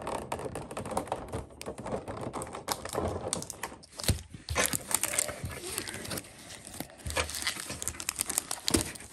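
Foil trading-card booster packs crinkling and rustling as they are handled and shuffled together in the hands, with a few sharp clicks among the crackle.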